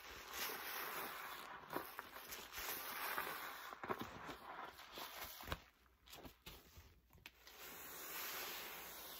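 Wet squelching and sloshing from a foam-laden sponge squeezed in soapy rinse water by rubber-gloved hands, with many sharp squishes. It goes quieter with a few small clicks a little past halfway. A steady, even hiss from the foam takes over for the last second or so.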